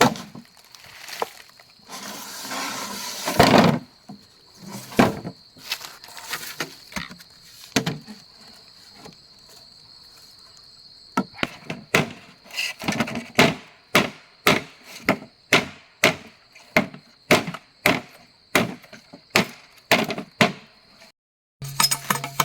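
Wood being chopped, blow after blow, about two a second in the second half, with a rustling, cracking stretch a couple of seconds in. An insect buzzes steadily behind it. Near the end it cuts off and music starts.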